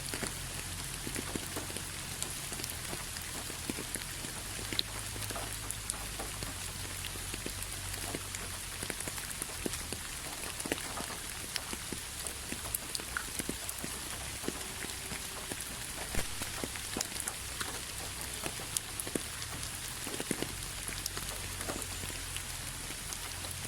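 Steady rain falling, with many individual drops pattering and tapping on a hard surface.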